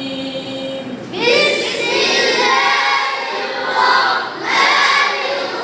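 A group reciting the Quran aloud together in a chanted unison, as in a Quran class. One voice is heard alone for the first second; the group comes in loudly about a second in, breaks off briefly near four and a half seconds, then starts again.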